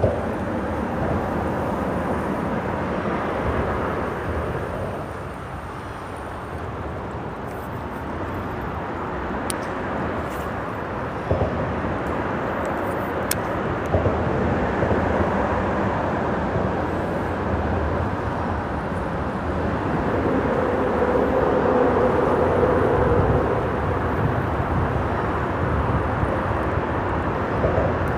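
Steady rumble of freeway traffic on the bridge overhead, swelling and easing as vehicles pass, with a few light clicks.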